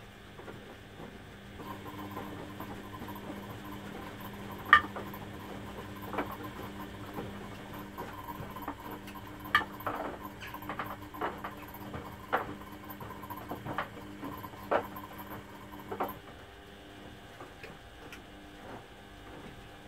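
Beko front-loading washing machines in a delicate wash cycle: a couple of seconds in, a drum motor starts and hums steadily while the wet laundry splashes and slaps inside the drum with irregular sharp splashes. After about fourteen seconds the motor stops and the drum pauses.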